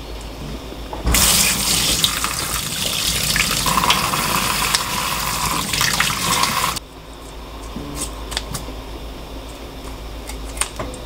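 Kitchen tap water running over a hand and an abalone being rinsed in a stainless bowl. It comes on sharply about a second in and cuts off just past the middle, followed by a few faint clicks of handling.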